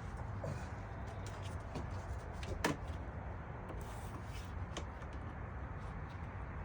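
Hand tools and plastic intake parts being handled in a car's engine bay: scattered light clicks and knocks, with one sharper click a little under three seconds in, over a steady low rumble.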